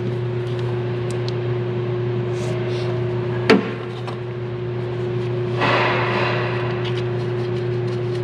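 A steady mechanical hum with a single sharp clink of a tool or part about three and a half seconds in, and a short scraping rustle around six seconds in.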